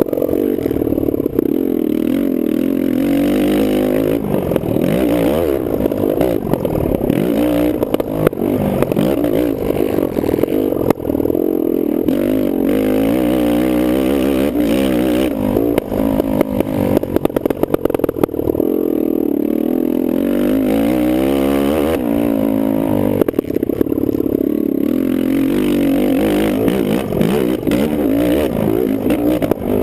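Kawasaki KFX450R quad's single-cylinder four-stroke engine racing hard, revving up and dropping back again and again.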